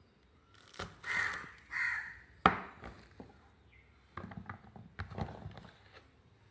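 A crow cawing twice, two harsh calls close together about a second in. Right after comes one sharp knock on the wooden cutting board, then light taps and clicks as green chillies are set into a ceramic tray.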